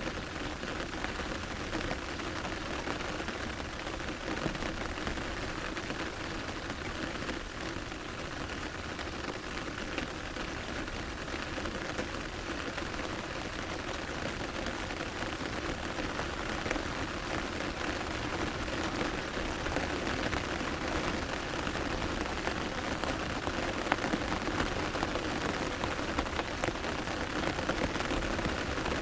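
Medium rain falling steadily on an umbrella canopy, a dense even patter of drops.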